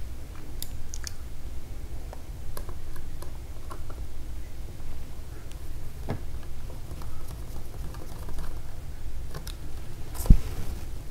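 Light scattered clicks and taps of small screws and a screwdriver on a laptop's plastic and metal parts as screws are tightened and handled, with one sharper knock near the end.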